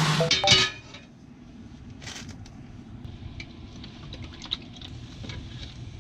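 A music track ends under a second in, followed by scattered light clinks and clangs of pots, pans and utensils being handled.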